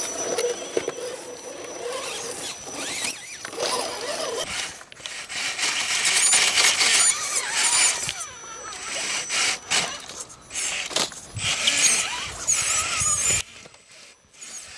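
Electric drive motors and gearboxes of RC rock-crawler trucks whining as they crawl over rocks, the pitch rising and falling with the throttle.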